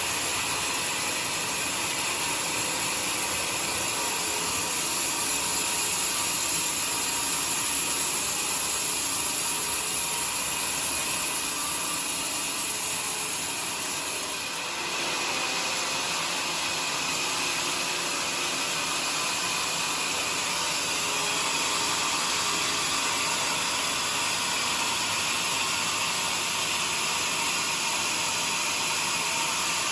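Sawmill saw running through a joar log: a steady, hissing machine noise that shifts slightly about halfway through.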